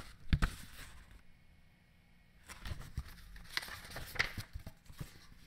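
Pages of a thin picture book being turned and handled: faint paper rustles and light taps, a few sharp clicks under a second in, then a quiet spell, then more rustling and ticks.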